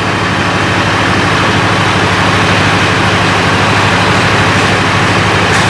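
Heavy engine idling steadily, a low even hum.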